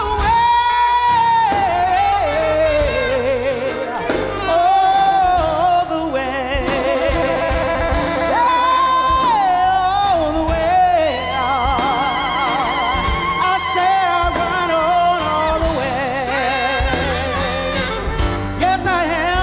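A high solo voice singing a gospel spiritual in long, held vibrato notes and ornamented wordless runs, over a low instrumental accompaniment.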